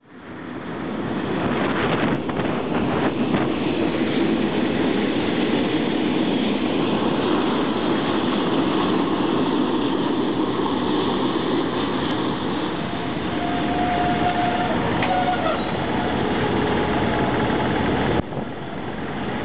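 KiwiRail DBR 1213 and DH 2851 diesel locomotives running past: a steady engine and rail rumble, with a brief thin squeal about two-thirds of the way in. The sound fades in at the start and drops suddenly near the end.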